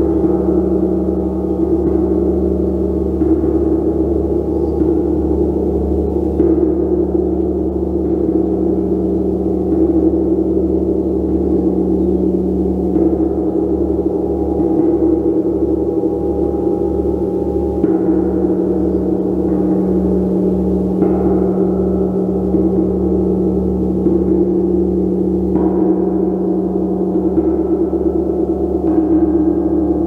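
Gong played continuously: a steady, dense wash of many overlapping sustained tones, renewed by soft mallet strokes every few seconds. In the middle, a low tone throbs about twice a second.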